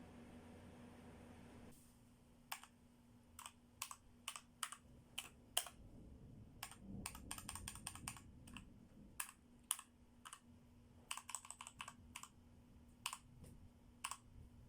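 Keys being pressed on a Royal Kludge RK68 mechanical keyboard with linear red switches: separate clacks and short quick runs of keystrokes, starting about two seconds in.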